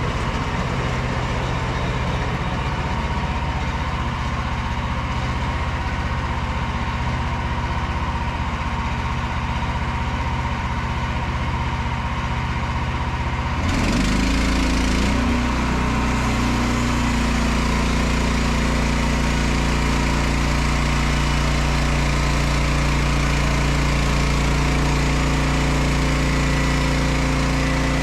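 Portable bandsaw sawmill's small petrol engine running steadily. About halfway through it changes to a louder, fuller note and keeps running at that level.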